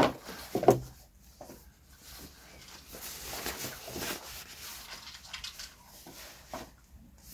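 Nylon fabric rustling and rubbing as an underquilt is handled and pulled from its small compression sack, in low, irregular scratches. A brief pitched sound comes at the very start.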